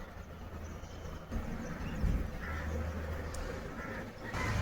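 Breathing through the mouth with short throaty, nasal sounds as warm salt water from a neti pot runs in one nostril and out the other during jal neti nasal rinsing.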